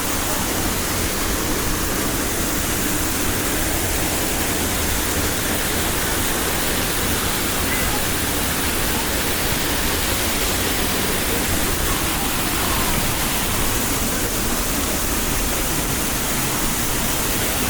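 Waterfall heard up close: a steady, dense rush of falling water that does not change.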